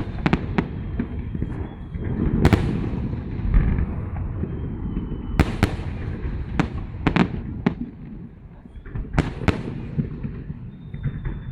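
Aerial fireworks salute: sharp bangs of shells bursting overhead, about a dozen at irregular intervals, some in quick pairs, over a steady low background rumble.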